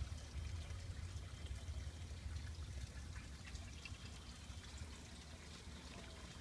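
Faint outdoor background noise: a steady low rumble with a light hiss and a few soft clicks.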